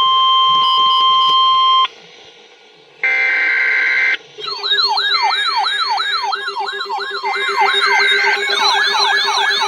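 Emergency alert broadcast signals. A steady alert tone stops about two seconds in, and a short buzzy data burst follows a second later. From about four seconds in, several overlapping siren tones wail up and down, two to three times a second.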